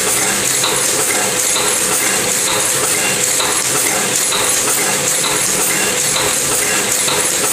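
Windmill-type platen printing press running as a numbering machine, clattering and clicking in a steady mechanical rhythm over a constant motor hum.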